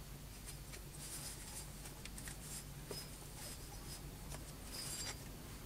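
Faint scratchy scuffing and a few light clicks as steel machine parts, a bearing housing and a steel sleeve, are handled and slid together by hand, over a steady low hum.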